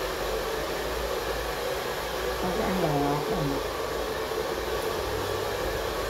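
Steady rushing noise of a hair dryer running, with a faint voice briefly about halfway through.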